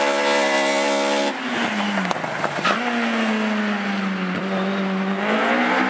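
Slalom race car engine held at high revs, then dropping in pitch about a second in as the car slows for a tight turn, running lower through the turn and rising again near the end as it accelerates away.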